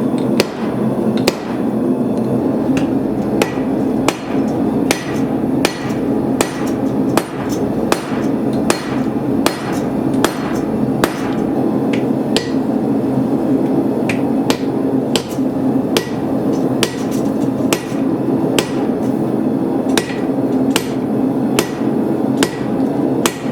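Hand hammer blows striking hot steel on an anvil at a steady pace of roughly one a second, each strike ringing briefly, over a steady low hum.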